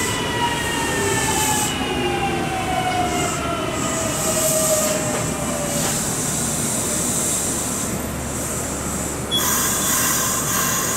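Kintetsu electric train moving slowly beside the platform. Several whining tones fall in pitch over the first six seconds or so, and a hiss starts about nine seconds in.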